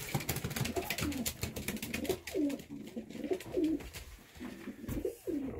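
Racing pigeons cooing: a run of low coos, each bending up and then down in pitch, over scattered light clicks and taps.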